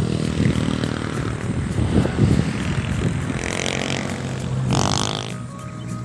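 A motor vehicle's engine running, rising in pitch twice near the middle and toward the end, as if revving or passing.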